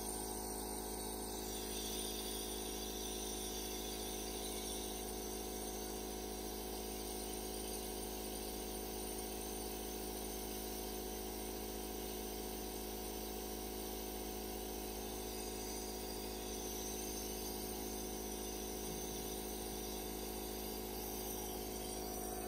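Nebulizer air compressor running with a steady mechanical hum, pumping air through the medication cup to make the mist.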